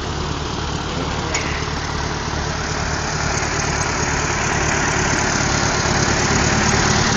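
Cockshutt 30 tractor engine running steadily at low speed with a fast, even low pulse, growing gradually louder as the tractor is eased into its parking spot.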